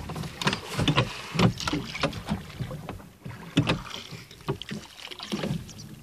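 Metal-bladed oars rowing a wooden rowboat: the blades splash in and out of the water again and again, with sharp knocks from the oars working in their oarlocks.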